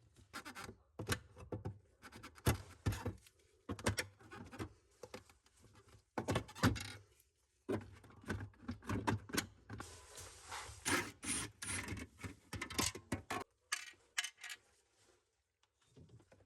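Hands working on refrigerator parts: irregular rubbing, scraping and light knocks, with a longer stretch of hissy scraping about two-thirds of the way through.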